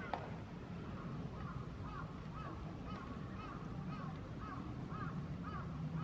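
A crow cawing over and over, about two short calls a second. There is a single sharp knock just after the start.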